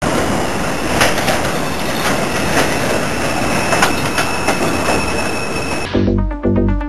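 New York City subway train running along an elevated platform: wheel and rail noise with a steady high squeal and scattered sharp clacks. Near the end it cuts off suddenly and electronic music with a heavy beat takes over.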